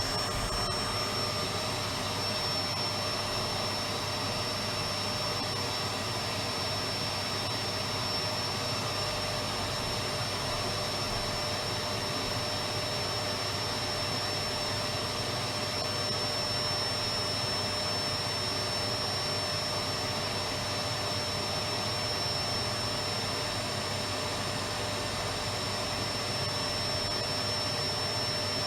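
Electric vacuum cleaner running continuously, a steady even rush of air with a constant high whine over it.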